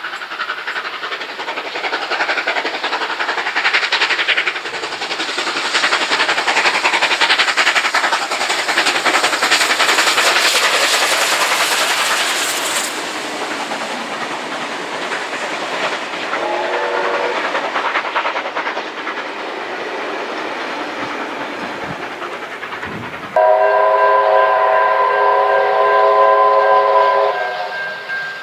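Steam locomotive 3801 working past at speed with its train: loud exhaust beats and wheels on the rails for the first dozen seconds, then the quieter rumble and clatter of the passing carriages, with a brief faint whistle about two-thirds of the way in. Near the end, a loud steam whistle blows a steady blast of about four seconds.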